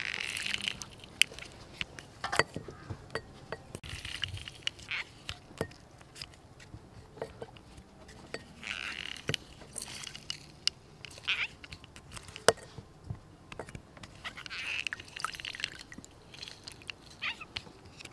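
Hand-held plastic lime squeezer pressing halved limes over a bowl: several squeezes every few seconds, each a brief wet hiss of juice, among sharp clicks and knocks of the squeezer and lime halves.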